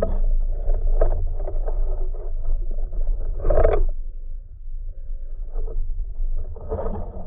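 Muffled underwater noise heard through a submerged camera: a steady low rumble with irregular swishing of water, and a louder rush about three and a half seconds in.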